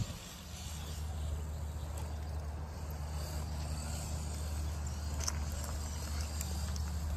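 RC rock crawler's brushless outrunner motor and drivetrain humming steadily at crawling speed as the truck climbs over boulders.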